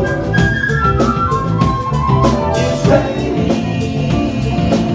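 Psychedelic rock band playing a song: a drum kit keeps a steady beat with cymbals over bass, while a lead melody steps downward. A singer comes back in about halfway with a sung word.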